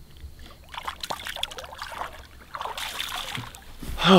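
Water splashing and dribbling at the side of a boat as a bass is let go by hand, with a louder burst near the end.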